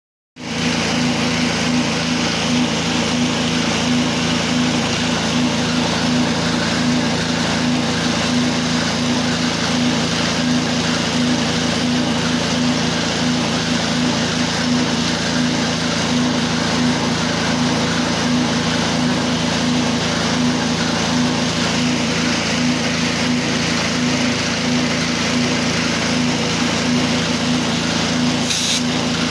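A machine or engine running steadily: an even low hum with a regular pulse that does not change.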